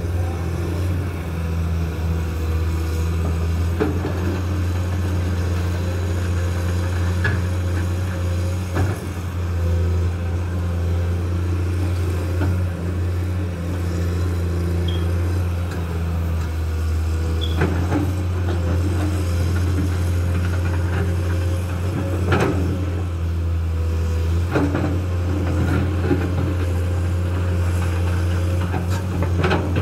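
Komatsu PC210 hydraulic excavator's diesel engine running steadily under digging load, with sharp knocks now and then from the bucket and arm as it works the sand.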